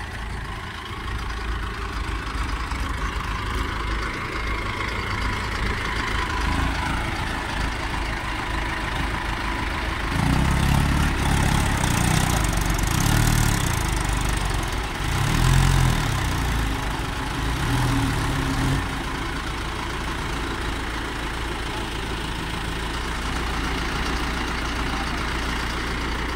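Mahindra Arjun 555 DI tractor's diesel engine running steadily, then revving harder between about 10 and 19 seconds in, its pitch rising and falling, as it drives under load through loose dug soil, before settling back to a steady run.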